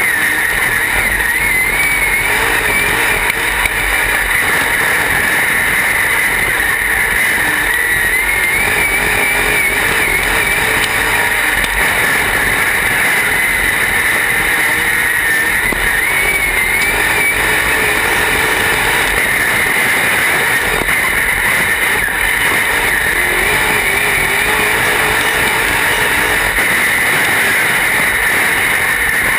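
Dirt-track race car engine at racing speed, heard loud and close from inside the cockpit. Its pitch rises and falls every few seconds as the driver lifts and gets back on the throttle.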